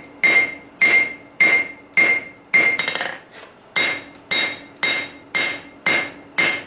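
Hand hammer blows forging a steel vise jaw insert on an anvil, about two strikes a second, each ringing. The rhythm breaks briefly about halfway, then resumes at the same pace.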